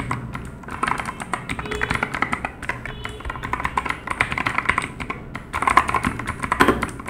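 Rapid typing on a Havit KB893L full-size mechanical keyboard with clicky blue tactile switches: a quick run of sharp key clicks, many per second, with a brief lull a little past the middle.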